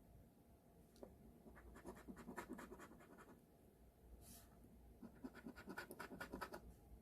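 Scratch-off lottery ticket being scratched, faint: two spells of quick scraping strokes, one in the first half and one near the end.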